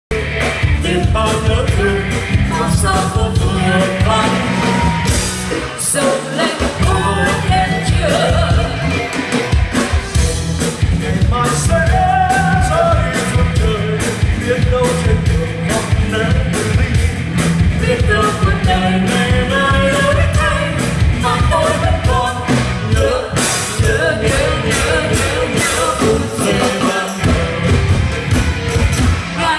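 Live band performing a Vietnamese song medley through the PA, with a singer's voice over drums, bass and guitar and a steady beat.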